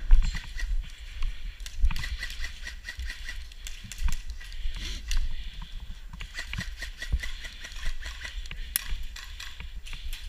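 Footsteps and rattling tactical kit as an airsoft player moves through grass, with scattered sharp clicks and low wind rumble on the helmet camera's microphone. Twice a short rapid run of high ticks, a couple of seconds in and again past the middle.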